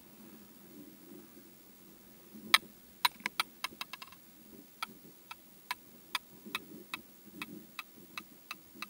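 Ski poles tapping in a run of sharp clicks: one loud click about two and a half seconds in, a quick flurry of about six, then steady taps about twice a second.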